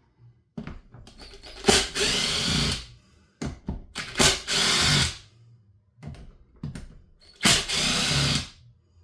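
A power screwdriver runs in three bursts of about a second each, backing screws out of a chainsaw crankcase, with small clicks between the bursts.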